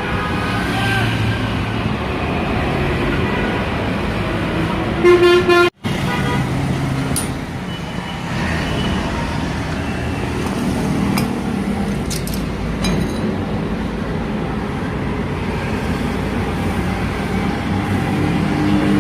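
Steady road traffic noise, with a vehicle horn sounding briefly about five seconds in. The sound cuts out for an instant just after the horn.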